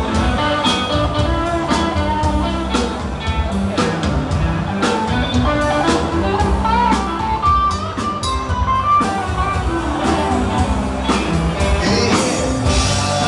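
Live dance band playing, with electric guitar over a steady drum beat.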